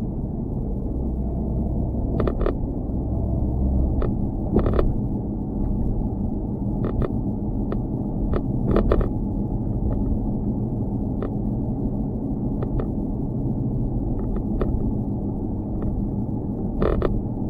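Loose GoPro camera mount knocking and rattling, sharp irregular knocks every second or two over a steady low rumble.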